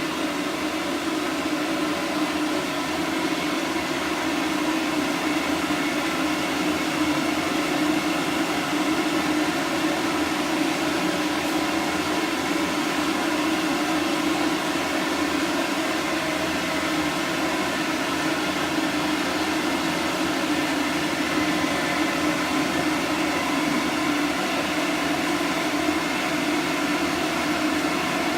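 Electric hair dryer blowing steadily: a constant rush of air with a motor hum.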